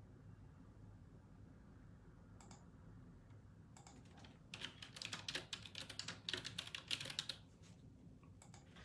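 Faint typing on a computer keyboard: a few single key clicks, then a quick run of keystrokes lasting about three seconds from the middle on, and a couple more clicks near the end.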